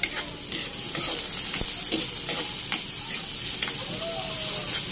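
Minced garlic and chopped onion sizzling in hot oil in a wok, with a metal spatula repeatedly scraping and clicking against the pan as they are stirred.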